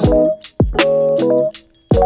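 Background music: sustained electronic chords over a programmed beat with a deep kick drum that hits three times, the music dropping away briefly just before the last hit.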